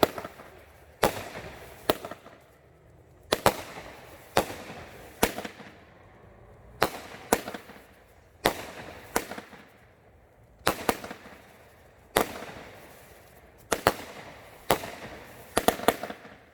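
Consumer fireworks finale cake firing a volley of shells: sharp loud bangs roughly once a second, some in quick pairs, each trailing off in a short fading rumble.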